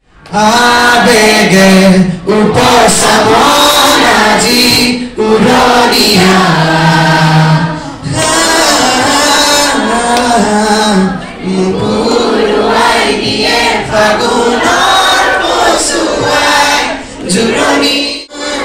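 A man singing a song into a handheld microphone, amplified, in melodic phrases with long held notes.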